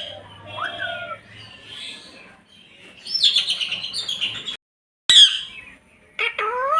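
Pet parrot chirping and squawking in a run of short calls. There is a quick rising whistle about half a second in and a fast burst of chirps around three seconds in. The sound cuts out briefly just before five seconds, followed by a sharp click and more rising-and-falling calls.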